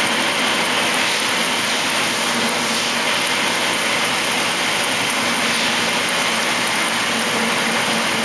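MAHO MH-1000 C/K universal milling machine milling aluminum: a loud, steady cutting and running noise with a low hum underneath.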